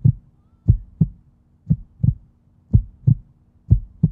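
Heartbeat sound effect: a steady, low double thump (lub-dub), repeating about once a second.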